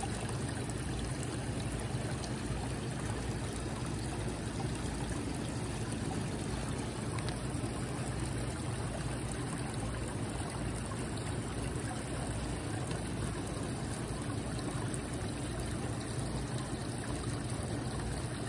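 Small garden-pond waterfall: water spilling steadily over a stone ledge into the pond with a continuous splashing trickle.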